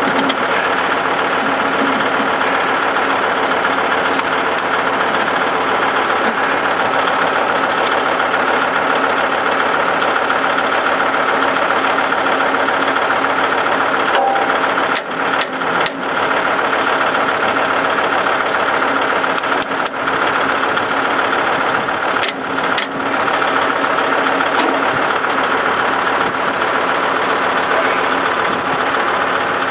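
Kubota tractor's diesel engine running steadily, with a few brief dips in level partway through.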